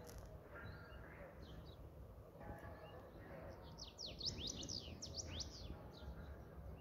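Small birds chirping, with a quick run of sharp chirps that sweep up and down in the middle, over a faint low rumble.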